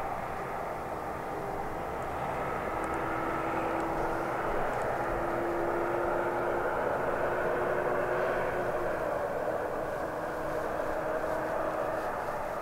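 Distant engine drone: a steady rushing noise with a held hum that slowly drifts in pitch, dipping slightly a little past the middle.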